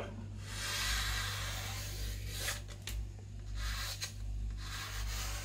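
Sheet of coarse paper rustling as a freshly sharpened knife slices through it, with a few short crisp cuts in the middle, over a steady low electrical hum.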